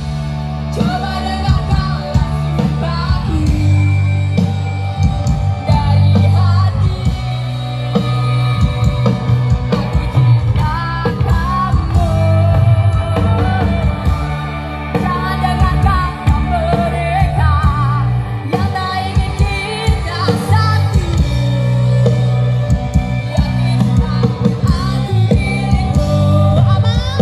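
Band music with a lead singer, played loud through the SJS Audio outdoor PA system, its subwoofers giving a heavy, steady bass under the vocal.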